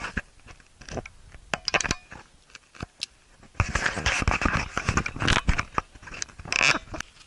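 Footsteps crunching and scraping on loose volcanic rock and gravel: a few separate steps at first, then a dense run of scuffing in the second half that stops just before the end.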